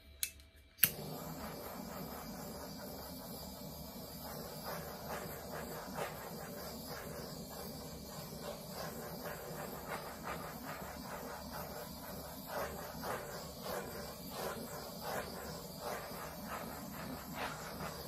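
Handheld butane torch clicking on under a second in, then its flame hissing steadily with faint irregular crackles.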